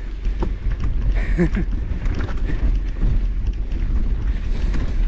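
Steady wind rumble on the camera microphone, with scattered light knocks and a short pitched sound about a second and a half in.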